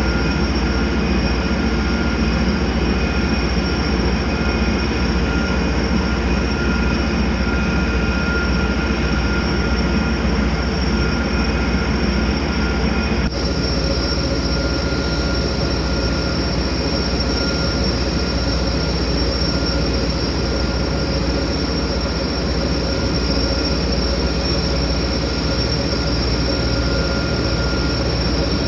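Steady drone of a moving barge's engines, a deep rumble with several steady high whines over it. The mix of tones shifts slightly about halfway through.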